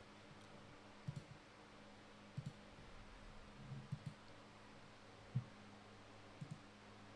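A few short, faint clicks at irregular intervals of about a second, over a low steady electrical hum.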